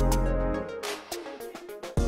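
Electronic background music with deep bass notes and drum hits.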